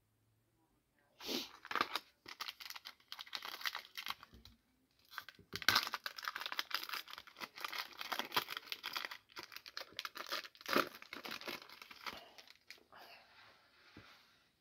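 A trading-card pack's foil wrapper being torn open and crinkled, in a run of ripping and crackling bursts lasting about eleven seconds. It eases to softer rustling near the end as the cards are drawn out.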